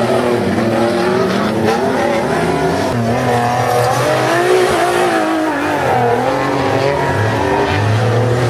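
Off-road race trucks powering through a dirt curve, their engines revving up and easing off in turn, several engines overlapping and rising and falling in pitch.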